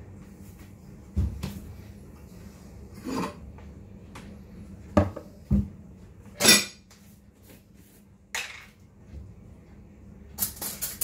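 Irregular metallic clinks and knocks, about eight in all, the loudest ringing one about six and a half seconds in and a quick cluster near the end, over a steady low hum.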